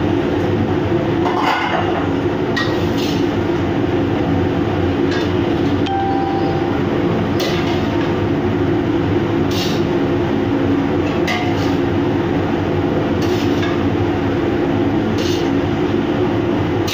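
Steady drone of a ship's machinery heard in the galley: a constant hum with a low steady tone under it. A light click or clink comes about every two seconds.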